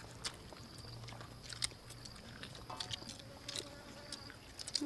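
Several people chewing and biting soft steamed rice cakes topped with shredded coconut. Faint, with scattered small mouth clicks and smacks.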